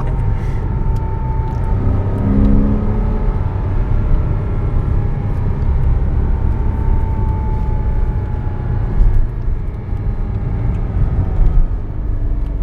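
Porsche 987.1 Cayman S's flat-six engine with tyre and road noise while driving, a steady low rumble heard from inside the cabin.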